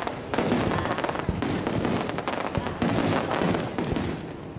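Aerial fireworks exploding in quick succession: a continuous crackle of small bursts with several heavier booms among them.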